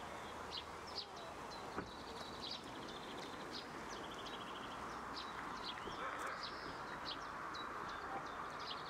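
Small birds chirping over and over in rural open air, with a couple of brief rapid trills, over a steady outdoor background noise. A single soft knock comes about two seconds in.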